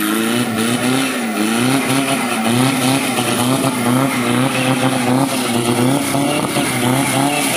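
Four-wheel-drive pickup truck's engine held at high revs under full throttle as it claws up a steep mud bank out of a flooded ditch. The pitch wavers up and down throughout.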